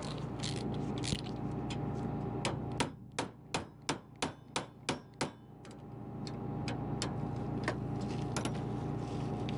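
Metal being struck with a tool used as a makeshift hammer during the swap of cutterbar guards on a combine header: a run of about eight sharp clanging strikes, roughly three a second, in the middle, with a single strike before and lighter taps after. A steady low engine hum runs underneath.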